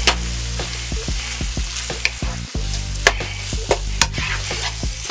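Diced chicken breast, onion and celery sizzling in a nonstick frying pan while a wooden spoon stirs them, with a few sharper scrapes and clicks of the spoon against the pan.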